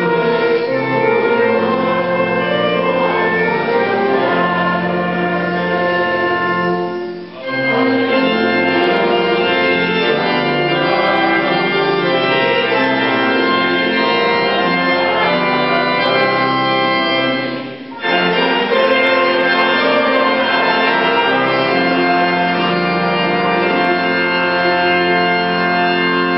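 Church organ playing sustained chords, with two brief pauses between phrases about seven and eighteen seconds in.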